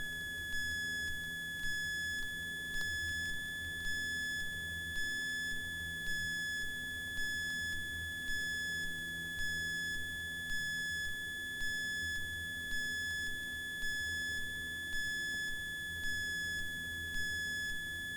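A steady high electronic tone with a short, higher beep repeating about twice a second, over a low drone.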